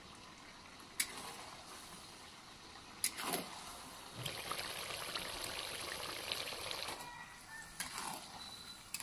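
Metal spatula stirring boiled chicken skin and chilli powder in a metal karahi. It clinks against the pan about one and three seconds in, then gives a few seconds of wet sizzling and scraping from about four to seven seconds in.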